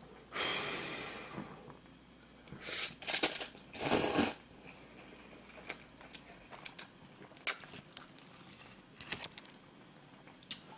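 Slurping hot ramen noodles: a long slurp at the start, several sharp, loud slurps around three to four seconds in, then small wet clicks of eating and one more slurp near the end.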